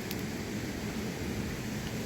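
Rain falling as a steady, even rush, with a couple of faint sharp ticks near the start.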